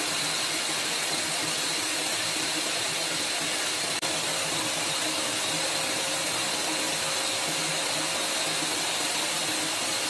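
Paint Zoom electric paint sprayer running steadily while spraying: its turbine motor whines and air rushes out through the hose and gun, with a momentary break about four seconds in.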